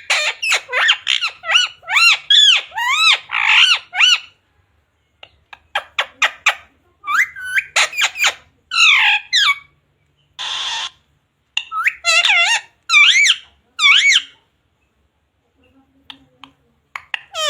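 Pet parrot chattering and whistling in quick runs of short, rising and falling high-pitched calls, with a single harsh squawk about ten seconds in.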